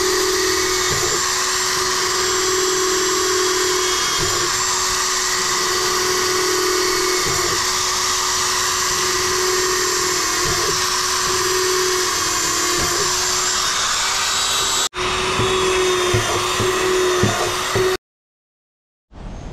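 Corded electric drill running steadily as it bores holes through a plastic drum, its pitch sagging briefly every couple of seconds as the bit bites through the plastic. The sound stops abruptly near the end.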